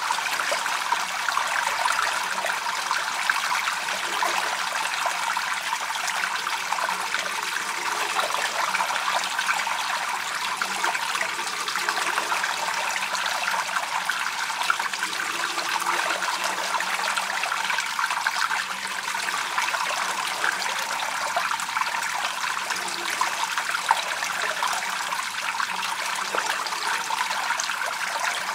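A narrow stream of falling water splashing steadily onto rock, a constant trickling splash.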